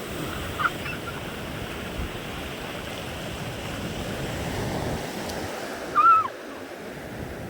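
Sea waves breaking and washing up a beach, a steady surf that swells and then eases. Two brief high calls cut through it, a faint one near the start and a louder one about six seconds in.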